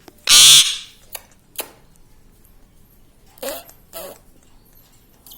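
Indian ringneck parakeet giving one loud, harsh screech about half a second in, followed by a few soft clicks and two short, quieter calls about three and a half and four seconds in.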